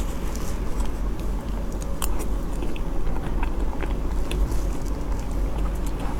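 Close-up chewing and biting of a soft cream-filled sakura mille-crêpe cake, with many short wet mouth clicks, over a steady low hum.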